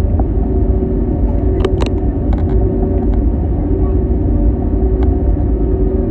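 Cabin noise of an Airbus A321neo taxiing, its Pratt & Whitney PW1100G geared turbofans at idle: a steady low rumble with a held hum. Two sharp clicks come just under two seconds in.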